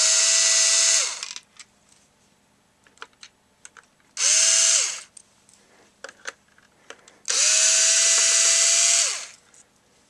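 Ryobi cordless power screwdriver running in reverse to back out the fan-assembly screws. It runs three times, the middle run short, each a steady motor whine that spins up and winds down. Light clicks come in the gaps between runs.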